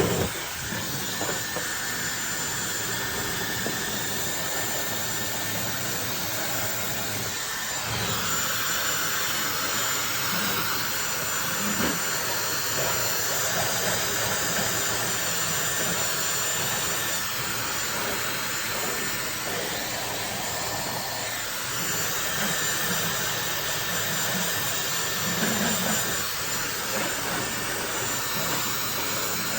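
Dyson Supersonic hair dryer switched on and blowing steadily at its strongest airflow setting while drying wet hair: a loud rushing hiss with a faint high whine, wavering slightly in loudness.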